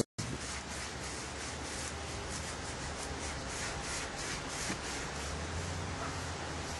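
Paintbrush rubbing a coating onto a concrete foundation wall in repeated back-and-forth strokes, a scratchy rub a few times a second.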